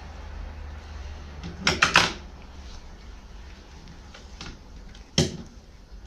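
A quick cluster of three or four sharp knocks about two seconds in and a single knock near the end, over a low steady hum.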